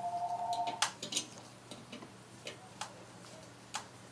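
A pulsing two-tone electronic trill, like a telephone ringing, stops just under a second in. After it come about six sharp, light clicks of metal drapery hardware as a threaded stud is fitted by hand to the back of a cast crown bracket.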